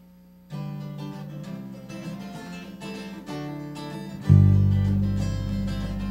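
A band of acoustic guitars starts a song, the guitars picking and strumming a tune from about half a second in. About four seconds in, the rest of the band joins with deep bass notes and the music suddenly gets much louder.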